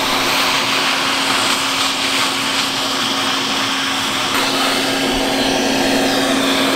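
Vacuum cleaner running steadily, its hose nozzle sucking up debris along the bare steel seam of the car body, with a constant hum.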